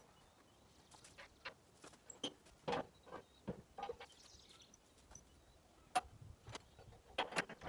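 Irregular light clicks and knocks from someone moving and handling parts around the tractor, a few a second at most. The sharpest click comes about six seconds in, and a quick cluster comes near the end.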